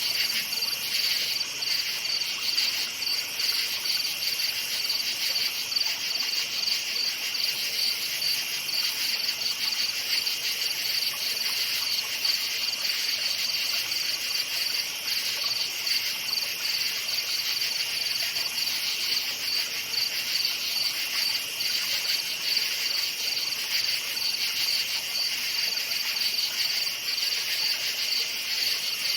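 Night chorus of many crickets chirping steadily: a continuous high-pitched, finely pulsing trill at two overlapping pitches.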